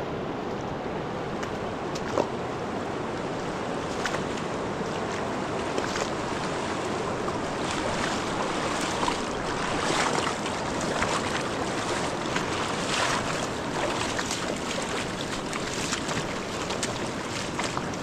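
Fast-flowing mountain river water rushing steadily, with scattered small splashes and knocks.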